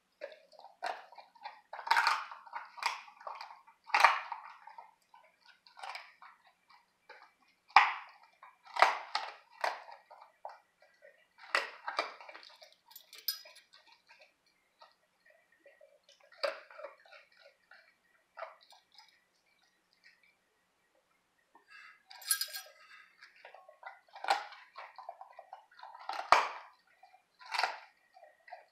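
A Labrador crunching dried raw pork bones, the bones clinking against a stainless steel bowl. The cracks come in irregular bursts, with a pause of a few seconds past the middle.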